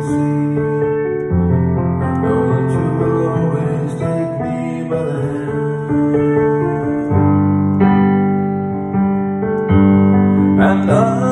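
Piano accompaniment to a slow ballad, playing held chords that change every two to four seconds in an instrumental passage. A man's singing voice comes back in near the end.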